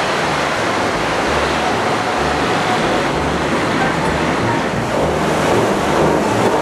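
Steady rush of wind and water noise aboard a motorboat under way, with irregular low rumbling underneath.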